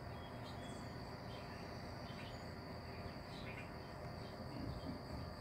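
Insects trilling steadily at one high pitch, over a low outdoor rumble.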